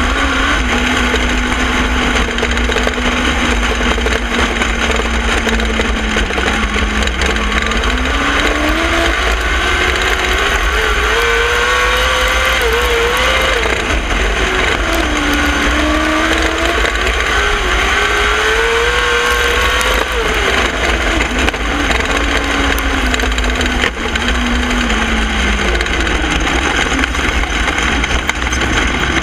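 Dirt-track sprint car's V8 at race pace, heard on board. The engine note sits low at first, climbs on the straights, dips through a turn, climbs again and falls away near the end, over a steady low rumble.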